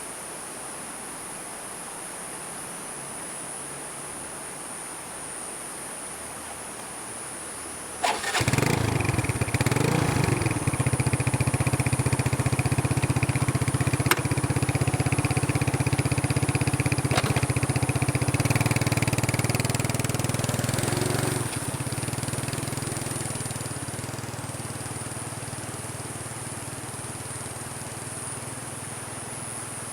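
A small motorcycle engine, the Kymco Jinwang 100 underbone, starts about a quarter of the way in and runs steadily for some seconds, then fades away as the bike moves off. Crickets chirr throughout.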